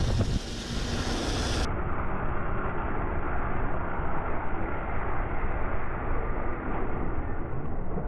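Steady rush of wind and road noise from a supermoto riding at speed, with a loud low bump right at the start. The sound turns duller about a second and a half in.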